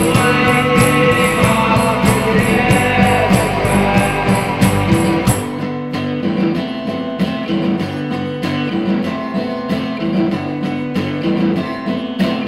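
Lo-fi rock band of guitar, organ and drums playing an instrumental passage without singing. The drums drop out about five seconds in, leaving the guitar playing on its own.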